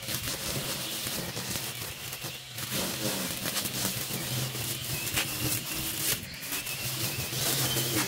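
String trimmer running and cutting long grass, with a steady hum and faint whine over many quick crackling ticks as the line strikes the stems.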